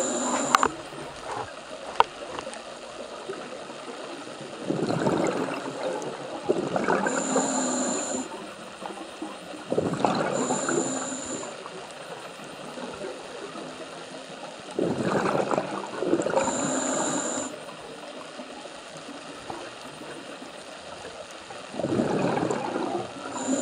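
Scuba diver breathing through a regulator: hissing inhales and gurgling exhaled bubbles come about every five to six seconds, four breaths in all, over a steady background hiss.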